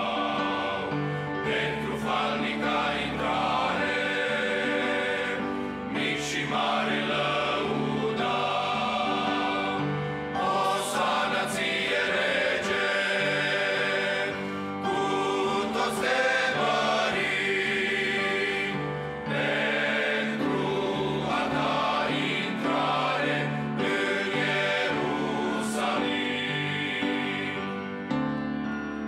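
Men's choir singing a Romanian hymn in parts, in phrases of about four to five seconds with short breaths between.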